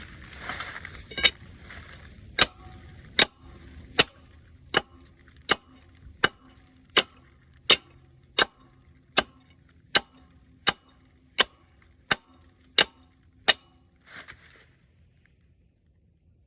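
Hammer striking metal, about sixteen evenly spaced blows a little under one a second, each with a short metallic ring, stopping near the end: pounding to drive stuck pistons out of a Wisconsin V4 engine.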